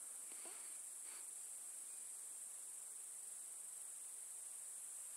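A chorus of grasshoppers singing: a steady, high-pitched chirring that does not let up.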